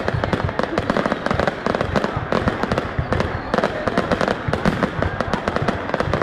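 Fireworks display: a dense, unbroken barrage of sharp bangs and crackles from aerial shells bursting.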